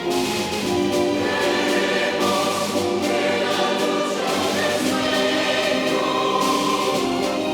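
Choir singing with orchestral accompaniment, several held notes changing every second or so.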